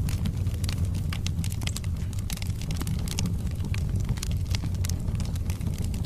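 Wood logs burning in a fireplace: a steady low rumble of the flames with frequent sharp, irregular crackles and pops from the wood.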